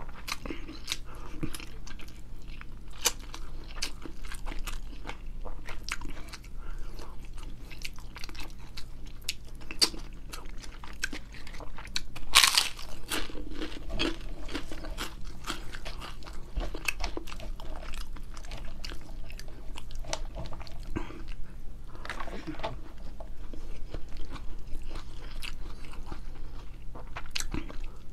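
Close-up mouth sounds of a person chewing and crunching a rice and grilled-fish meal: many short crackly crunches and wet clicks, with one louder crunch about halfway through.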